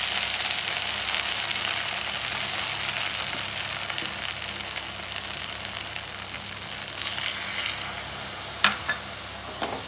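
Soya chunks, onions and sauce sizzling in an aluminium kadai, the hiss slowly getting quieter. A metal slotted spoon taps against the pan a couple of times near the end.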